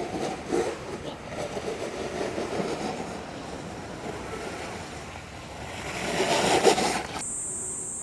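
Rough rumbling and hissing of a snowboard sliding, with wind on the microphone, swelling to its loudest about six to seven seconds in. It then cuts off suddenly to a steady high hiss.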